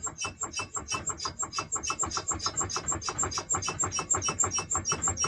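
Rapid rhythmic whistling chirps, about eight a second, from the rear wheel hub and brake drum of a VAZ 2104 (Lada) turning with the wheel off. This is the whistle the owner is hunting down, and he suspects the wheel bearing.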